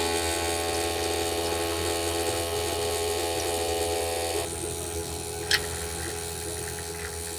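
Kanu Barista capsule coffee machine's pump running steadily as it brews coffee into a glass mug of ice, its hum changing about four and a half seconds in. A single sharp click comes a little past the middle.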